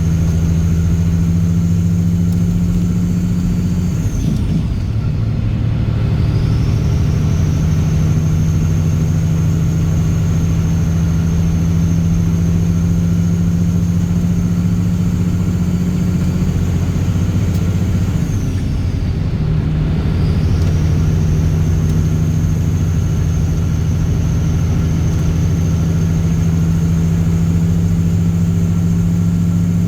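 Straight-piped Caterpillar C15 ACERT diesel in a semi truck running steadily under way, with a deep drone and a high turbo whine. The whine and engine note drop briefly about four seconds in and again around eighteen seconds, then pick back up.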